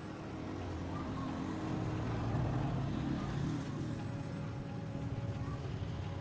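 A motor vehicle's engine running, growing louder toward the middle and then easing back.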